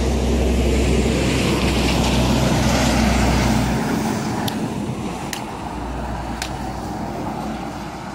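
Road traffic: a large truck passing on the road, with a deep rumble that is loudest in the first few seconds and then slowly fades. Three brief high ticks come in the second half.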